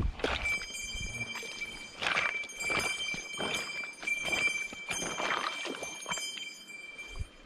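Footsteps on the loose river stones of a bank: a run of short clacks and crunches, about one or two steps a second, over a steady high-pitched tone.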